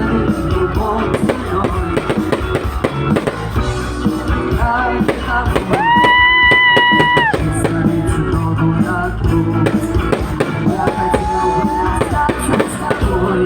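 Rock-style song with a singer, drums and guitar. The singer holds one long high note about halfway through and a shorter one near the end.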